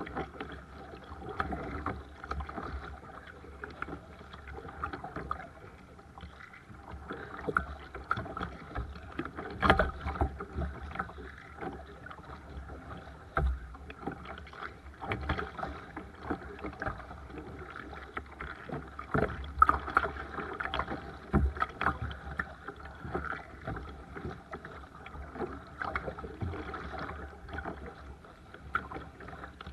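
Seabird Discovery sea kayak being paddled: irregular paddle splashes and drips over a steady wash of moving water.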